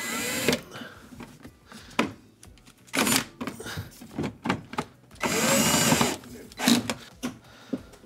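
Cordless drill/driver with a Torx bit driving screws into a dishwasher's door panel, in short runs. There is a brief run at the start, another about three seconds in, and a longer run of about a second past the middle, followed by a couple of quick blips. Each run rises and falls in pitch as the motor spins up and slows.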